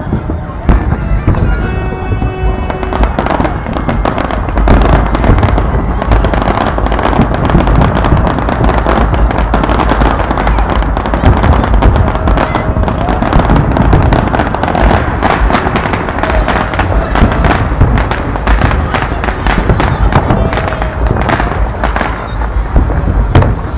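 Fireworks display: aerial shells bursting in rapid, almost continuous bangs and crackle over a steady low rumble.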